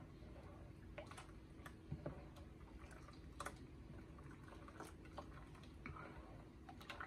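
Faint, irregular light clicks and taps of a metal ladle knocking against a glass bowl as batter is stirred.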